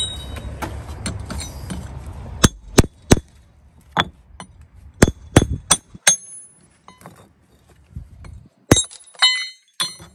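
Steel brick trowel and tools knocking against bricks: a series of sharp knocks and ringing metal clinks. Near the end comes the loudest knock and a short cluster of clinks, as a brick hammer and trowel are set down on a stack of bricks.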